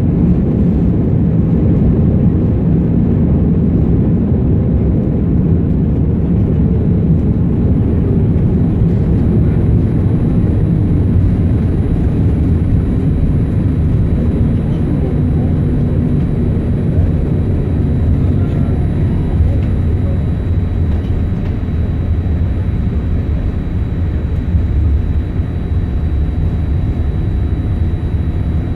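Steady low rumble inside the passenger cabin of a Boeing 787-8 Dreamliner, from its GEnx-1B jet engines and the airflow.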